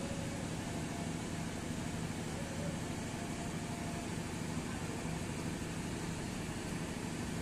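Diesel passenger train at the platform, its engine running with a steady low drone under a wash of even noise.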